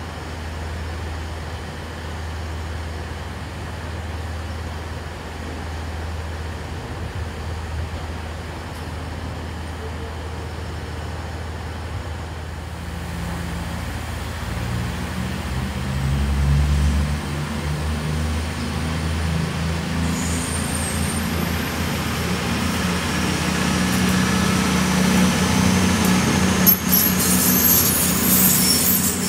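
A train running at a station. A steady low engine hum gives way about halfway through to a louder, building engine note with higher rising tones, growing louder toward the end as the train gets moving.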